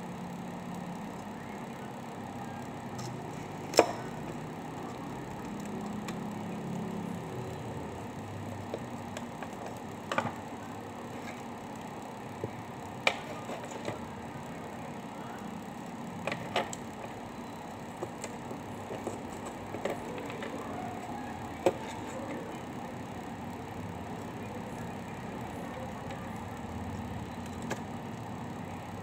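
Scattered sharp clicks and taps of a laptop's metal heatsink-and-fan assembly and small tools being handled on a wooden workbench, about a dozen in all, the loudest about four seconds in. A steady low hum runs underneath.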